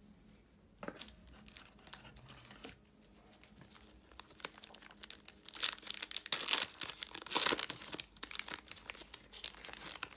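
Wrapper of a basketball trading card pack crinkling and tearing as it is pulled open by hand: scattered crackles at first, then denser, louder crinkling in the second half.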